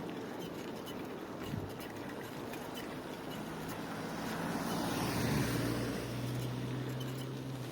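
A motor vehicle passing on the street: a low engine hum comes in about halfway through, is loudest a little past the middle, then eases off over a steady background hiss.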